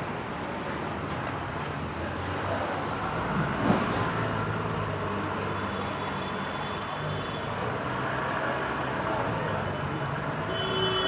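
Busy city road traffic: engines running and tyre noise, with a sharp knock a few seconds in. A vehicle horn starts sounding near the end.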